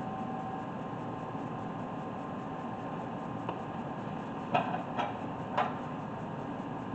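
Brake parts and tools being handled: four short sharp clicks or knocks about halfway through, over a steady background hum.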